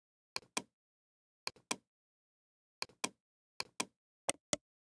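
Computer mouse clicking: five pairs of sharp clicks, the two in each pair about a fifth of a second apart, with about a second between pairs.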